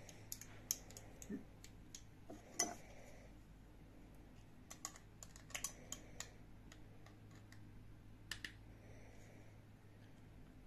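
Scattered light metallic clicks and taps of a folding multi-tool being opened and its pliers set on a steel M6 threaded rod and nut, to tighten the nut down.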